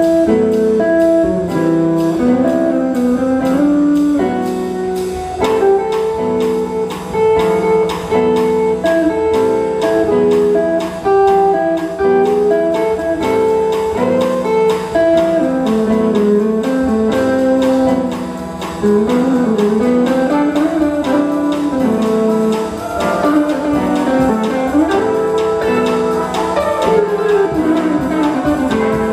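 Jazz big band playing a bossa nova, with an archtop electric guitar carrying the lead line over upright bass and drums keeping a steady beat.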